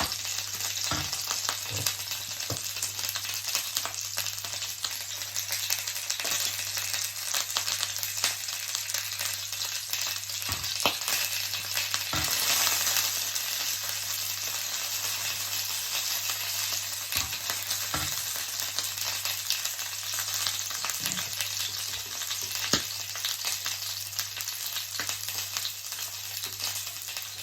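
Salmon fillets sizzling as they fry in a frying pan: a steady high hiss with scattered light clicks, swelling briefly about twelve seconds in.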